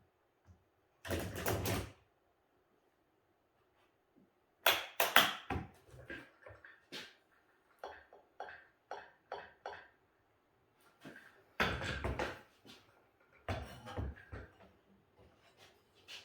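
Workshop handling sounds: a few short scraping or sliding bursts and sharp knocks, with a run of lighter taps and clicks in the middle, as of wooden boards being moved and set down.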